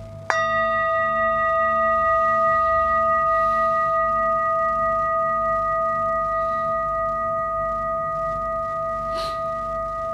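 A metal singing bowl is struck once with a mallet about a third of a second in, over the ring of an earlier strike. It rings on in a few clear tones with a slight slow waver, fading only gradually.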